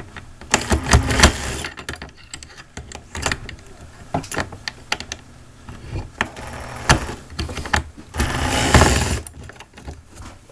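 A screwdriver prying at the metal clips that hold a blind to a window frame: irregular clicks, taps and small metallic rattles, with two longer stretches of scraping, about a second in and near the end.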